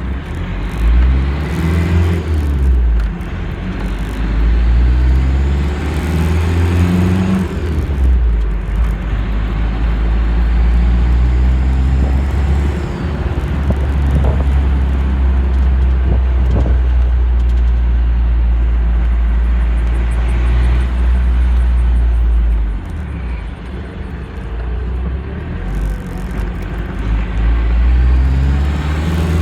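Turbocharged car engine pulling up through the revs several times with its turbo whistling, then running at a steady speed, then accelerating again near the end.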